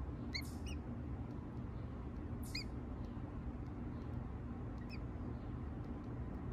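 A few short, high bird peeps, four in all and each lasting only a moment, over a steady low hum.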